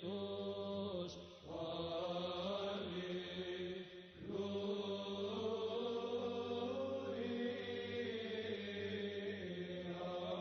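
Background chanted vocal music: long held sung notes over a steady low drone, with brief pauses about one and a half and four seconds in.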